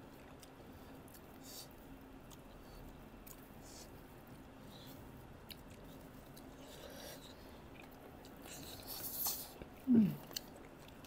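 Close-mic chewing and lip-smacking of people eating rice and pork by hand, with scattered soft mouth clicks. About nine seconds in there is a louder spell of smacking, then a short hum of the voice that falls in pitch.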